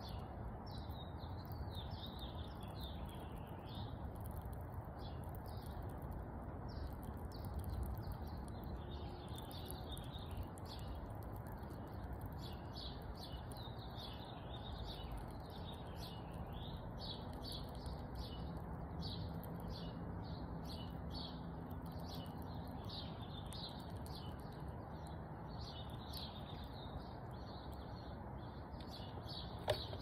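Small birds chirping continuously over a steady low background hum, with one sharp knock near the end.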